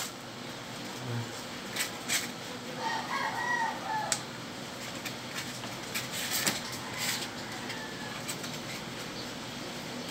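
A chicken calling briefly in the background about three seconds in. Light clicks and knocks come from circuit boards being handled and set down on a workbench.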